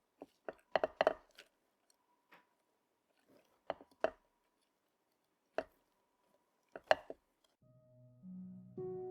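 Scattered sharp clicks and taps, small objects being handled and set down while a terrarium is assembled, over a faint steady hum. Soft plucked background music comes in near the end.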